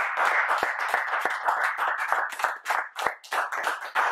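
Small audience applauding. The clapping is dense at first and thins into more separate claps after about two seconds.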